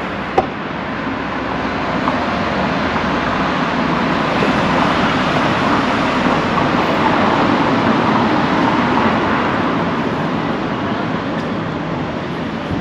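Steady rushing noise of a passing vehicle, building to a peak about halfway through and easing off again, with a single sharp click just after the start.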